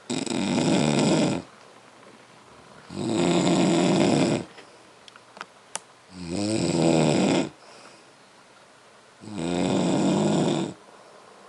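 Loud snoring: four long snores about three seconds apart, each lasting well over a second, with quieter gaps between them.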